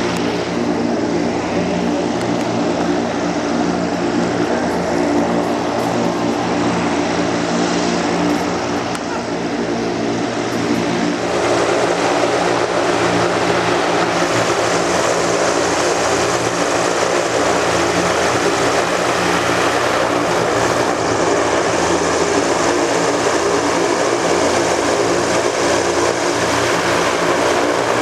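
Zeppelin NT airship's propellers and piston engines running steadily close overhead. About eleven seconds in the sound steps up louder and fuller.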